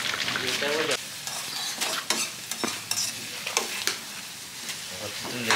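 Food sizzling as it fries in a pan while a utensil stirs it, scraping and knocking against the pan again and again.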